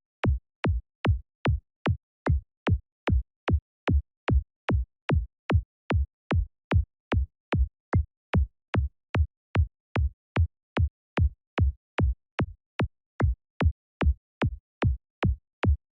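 Synthesized kick drum from the KickNBassGel software synth repeating on its own about twice a second, each hit a short click falling quickly into a low tone tuned to D. Its pitch sweep is being shaped with the synth's T sweep and V sweep controls.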